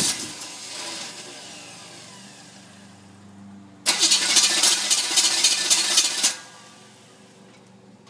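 A 1973 Camaro Z28's small-block V8 being cranked over by its starter. At the start a crank dies away over a few seconds. About four seconds in it cranks hard again for roughly two and a half seconds and stops abruptly without the engine catching and running.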